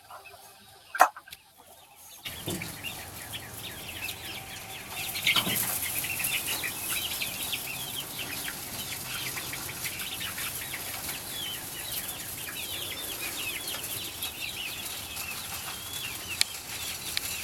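A flock of chickens calling, with many short, overlapping calls from about two seconds in, and a sharp click about a second in.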